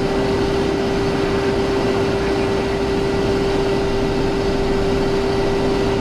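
Steady cockpit noise of a Cessna Citation XLS twin-turbofan business jet in the climb: an even rush of engine and airflow with one constant hum tone running through it.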